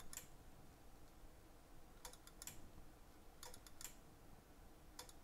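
Near silence broken by a few faint clicks in small clusters, about two seconds in, three and a half seconds in and near the end.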